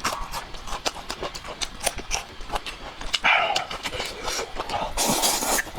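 Close-miked eating: a run of crunches and mouth smacks as food is chewed, with a short hissing rush near the end.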